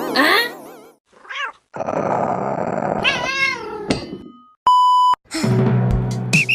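A cat meowing and yowling in short wavering calls among edited sound effects, with a steady half-second beep tone a little after the middle.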